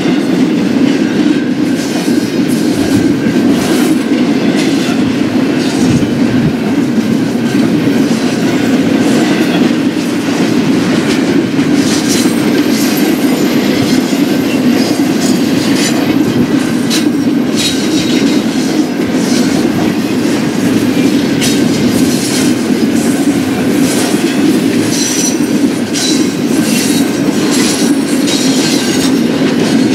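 Freight train cars rolling past at steady speed, with continuous rumble and clickety-clack of steel wheels over the rail joints. Occasional faint, high wheel squeal.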